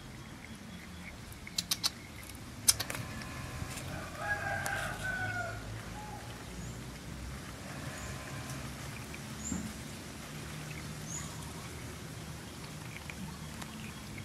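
A rooster crows once, about four seconds in, over a low steady hum. A few sharp clicks come just before it, and faint high chirps follow later.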